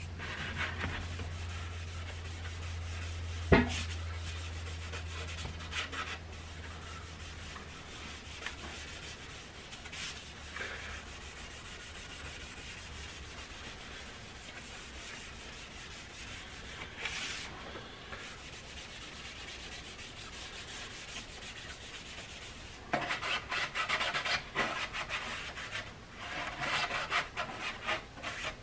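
A cloth pad rubbing stain into a bare wooden radio cabinet. It is faint at first, then comes in brisk, rapid strokes over the last five seconds or so, with one sharp knock about three and a half seconds in.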